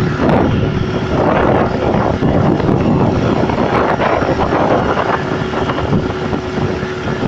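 Motorboat's outboard engine running steadily at speed, with wind rushing over the microphone.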